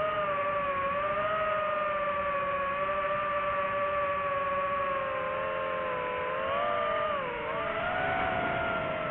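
DJI FPV drone's motors and propellers whining steadily, the pitch drifting with the throttle and dipping, then rising again, about seven seconds in.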